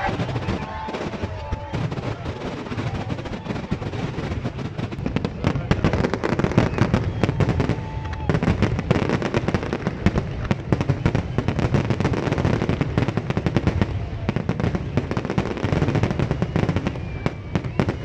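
Fireworks display going off: a dense, continuous barrage of rapid bangs and crackles, many blasts overlapping, getting thicker about a third of the way in.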